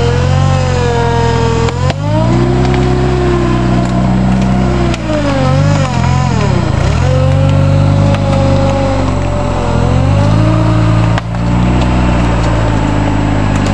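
Suzuki Samurai 4x4's engine running under heavy load and revving as the truck winches itself through deep mud on a PTO-driven winch. The engine note holds high, drops and climbs back about halfway through, then holds high again.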